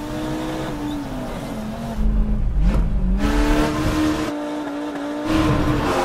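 Race car engine running hard under load. Its pitch sinks, then jumps back up after about three seconds, and the sound cuts abruptly between louder and quieter takes several times.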